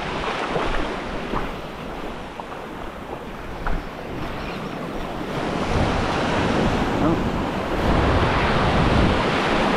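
Ocean surf breaking and washing up the sand in the shallows, with wind buffeting the microphone. The wash grows louder about halfway through as a wave comes in.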